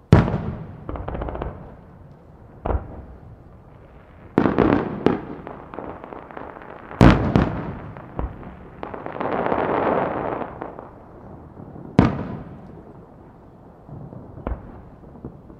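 Aerial firework shells bursting over water with sharp, echoing bangs at irregular intervals of a second or few. The loudest come at the very start and about seven seconds in. Just after the middle there is a second or so of hissing.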